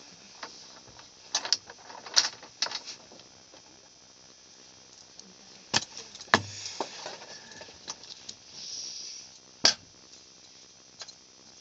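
Scattered sharp clicks and knocks with some rattling, the loudest about six and nine and a half seconds in, and a short rustle just before the last knock.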